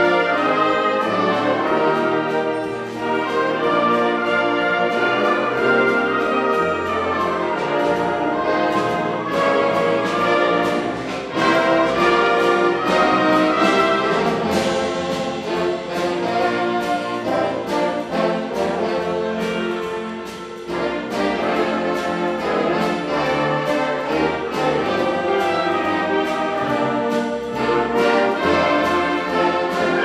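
Live concert wind band playing a holiday arrangement, with clarinets, saxophones, brass and tuba sounding together in full, sustained chords.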